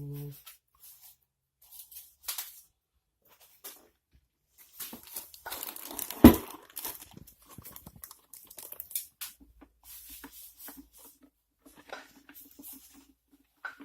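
Packaging rustling and crinkling as it is handled, with scattered clicks and one sharp knock about six seconds in.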